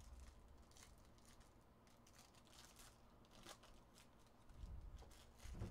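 Faint rustling and light clicking of trading cards and plastic card holders being handled, with a couple of soft low bumps near the end.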